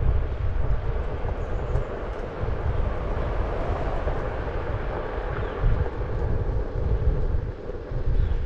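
Wind buffeting the microphone while riding along a concrete path, a heavy, uneven low rumble, with a pickup truck driving past close by about halfway through.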